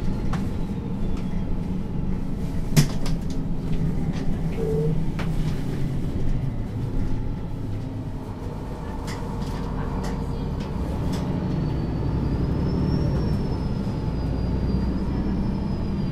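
MAN NG 323 articulated city bus running, its diesel engine giving a steady low hum with scattered rattling clicks and one sharp click about three seconds in. The engine sound dips around the middle and builds again afterwards, with a faint high whine rising and falling near the end.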